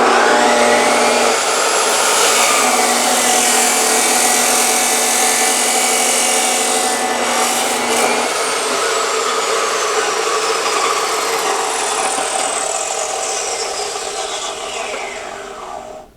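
Chop saw starting up with a rising whine and running loud and steady while it cuts short an aluminium spacer. About halfway through it is released and the blade winds down with a slowly falling whine that fades out near the end.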